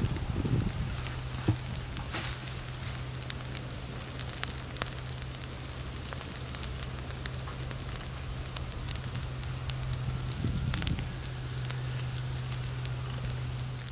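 A heap of dry bamboo leaves burning, crackling with irregular sharp snaps over a smoky hiss. A steady low hum runs underneath.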